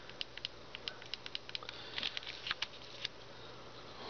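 Handling noise from the plastic translator device and the phone: a run of small irregular clicks and taps, busiest and loudest about two seconds in, that stops about three seconds in.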